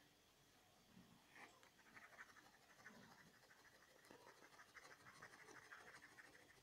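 Faint scratching of a pen nib on paper in quick, repeated hatching strokes, starting about a second and a half in.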